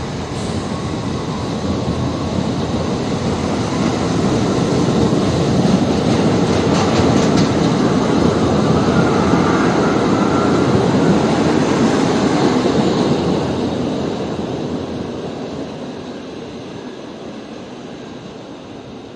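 New York City subway rail adhesion train rolling past the platform on steel wheels. Its rumble builds over the first few seconds, holds strongest in the middle, then fades steadily as the cars clear the station.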